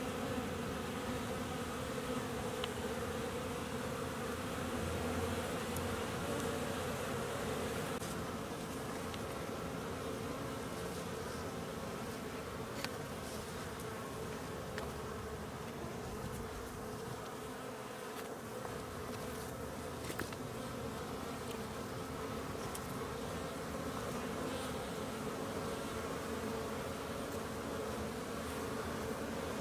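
Honeybees buzzing steadily in a dense hum around the hive entrance, a colony out on winter cleansing flights.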